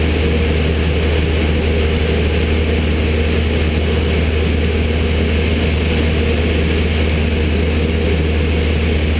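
Aerobatic light aircraft's piston engine and propeller running steadily in flight, heard from inside the closed cockpit: a loud, even drone with a strong deep hum.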